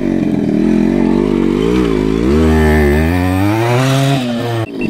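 A vehicle engine revving unevenly, its pitch rising and falling, then climbing steadily in the second half before cutting off suddenly near the end.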